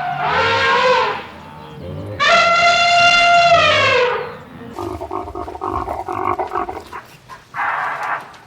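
Farm animals calling: two long, high, drawn-out cries that fall in pitch at their ends, followed by a run of short, rapid calls and one more brief cry near the end.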